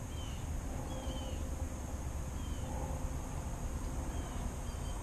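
Outdoor ambience at a pond: a steady high insect drone, a few faint, short, falling bird chirps spread through it, and a low wind rumble on the microphone.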